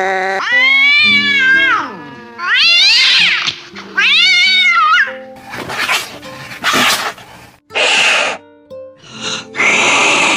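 Angry domestic cats caterwauling: three drawn-out yowls that rise and fall in pitch, then short harsh hissing bursts through the second half.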